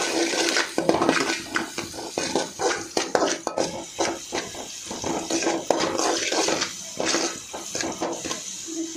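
A metal spatula scrapes and knocks rapidly and irregularly against a metal kadai, stir-frying diced vegetables in hot oil, with the sizzle of the oil hissing underneath.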